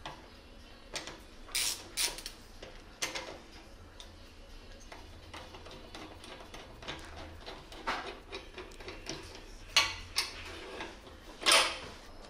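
Ratchet and hex bit working a fuel tank bolt loose on a motorcycle: scattered clicks and metal-on-metal knocks, the loudest coming near the end.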